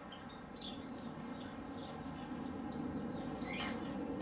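Small aviary birds chirping in short, scattered high calls over a steady low hum.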